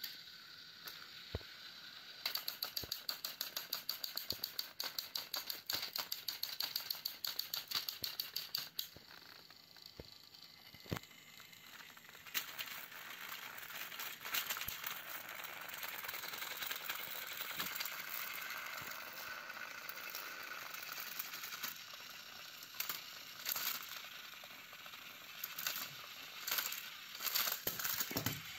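Battery-powered plastic toy trains on plastic track: fast rattling clicks for the first several seconds, then a steady motor whir. Near the end there are several louder plastic clatters as the toys tip off the track and fall.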